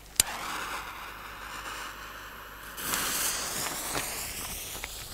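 A gas lighter clicks on and hisses as its flame is held to the fuse of a firework mine tube; about three seconds in the fuse catches and burns with a louder spitting hiss of sparks.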